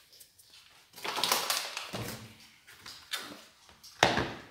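Handling sounds on a kitchen work surface while dusting it with flour for rolling dough: a brushing rustle, then a sharp knock near the end.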